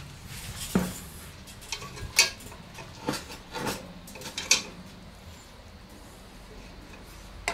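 Wooden spatula scraping and knocking against a cast-iron Dutch oven as clarified butter is pushed around the bottom, with clinks from the pot's wire bail handle. A handful of separate knocks and scrapes, the loudest about two seconds in.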